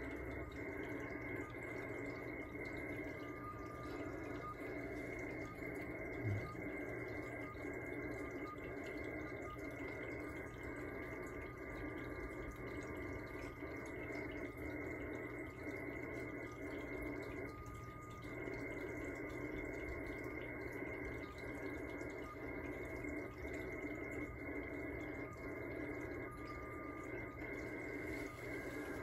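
Xiegu G90 shortwave transceiver in upper-sideband receive on 6.778 MHz, its speaker giving steady band-limited static with faint short tones near 1.2 kHz coming and going. A brief thump about six seconds in.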